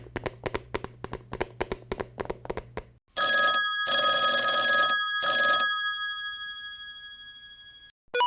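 Quick clicking, about six clicks a second over a low hum, then a bell rings in three short bursts, like an old telephone bell, and its tone fades away slowly.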